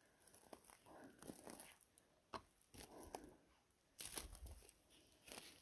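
Near silence with faint, scattered rustles and crunches of forest-floor litter, a slightly louder rustle about four seconds in.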